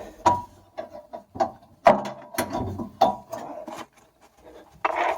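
Irregular knocks, clicks and rattles of hand tools and metal parts as a Bosch washing machine's damper is worked loose from its mounting.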